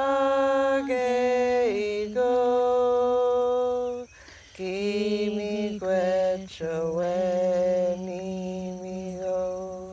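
Unaccompanied prayer song sung in long, held notes, phrase after phrase with short breaks, each phrase dipping in pitch at its end.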